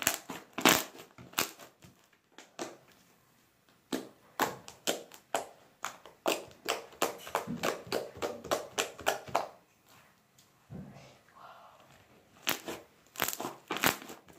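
White homemade slime being squished and kneaded by hand, giving off quick sharp crackling pops and clicks. The pops come about two or three a second in a busy run from about four to nine seconds in, pause briefly, then pick up again near the end.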